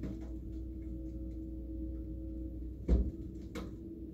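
Excavator engine and hydraulics running with a steady hum while the machine tilts a speedboat hull. A single sharp knock about three seconds in, then a fainter click half a second later.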